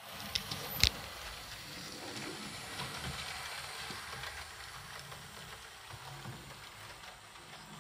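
HO scale model steam locomotive and freight cars rolling along the track: a steady rattle of small wheels on rails, with a sharp click just under a second in.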